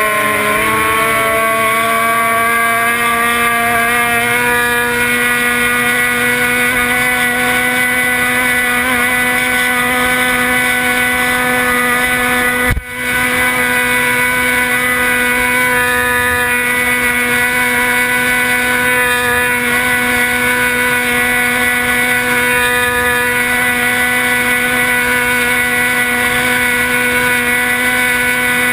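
Race boat's engine running at high speed, close up; its pitch climbs over the first second or so and then holds steady. About thirteen seconds in, the sound cuts out for an instant.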